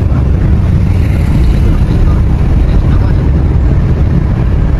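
Loud, steady low rumble inside a moving car: engine and road noise while driving.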